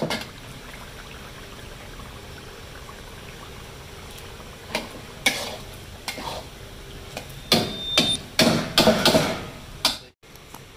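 Chicken frying in green masala in a metal karahi, with a steady sizzle. A metal spatula scrapes and knocks against the pan as the pieces are stirred: a couple of knocks around the middle, then a quick run of them near the end, before the sound cuts off abruptly.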